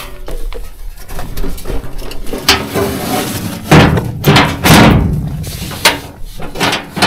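A series of loud clunks and bangs from work on the Škoda RTO fire truck's batteries, the heaviest coming close together around the middle.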